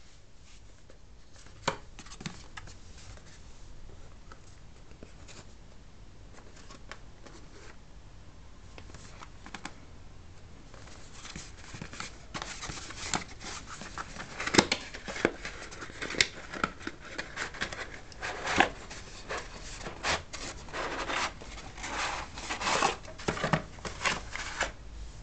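Hands handling and opening a cardboard box: a few scattered taps and clicks at first, then from about halfway a busier run of cardboard scraping, rubbing and knocks as the box is turned over and opened.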